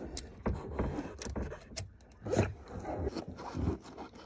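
Socket wrench with an extension working a nut on a boat engine's starter motor: a run of metal clicks and scrapes, with a few duller knocks.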